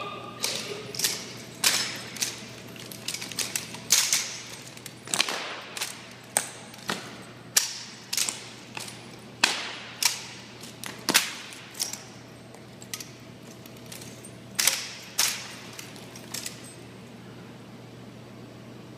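Rifle drill by a ceremonial guard drill team: an irregular series of sharp slaps and clacks as hands strike the rifles and the rifles are snapped through movements. The cracks stop about two and a half seconds before the end.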